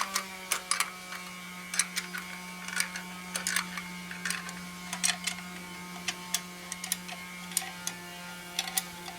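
Irregular light metallic clicks and clinks of hand tools on metal fittings as fittings and bolts are worked on, over a steady low hum.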